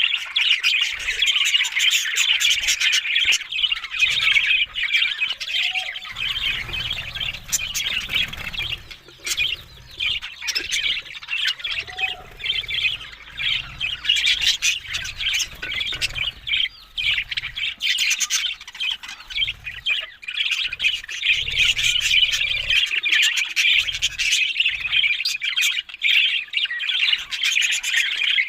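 Budgerigars chattering and warbling without a break: a dense stream of overlapping chirps, squawks and clicks.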